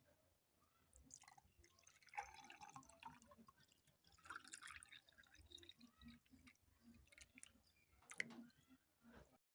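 Water dripping, with faint, irregular drops and small splashes; the sound cuts out just before the end.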